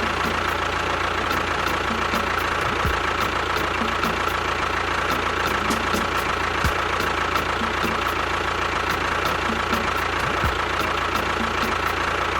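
A small motor running steadily, as a homemade mini tractor does, with a steady whine and light regular ticking over a low hum.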